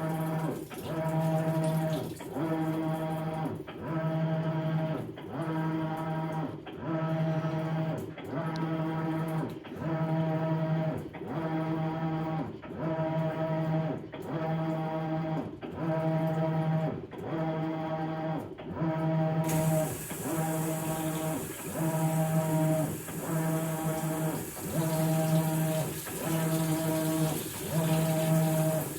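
Maytag Bravos XL top-load washer agitating a load of bedding: the wash motor hums in regular pulses about every second and a half as the wash plate turns one way and then the other, with water sloshing.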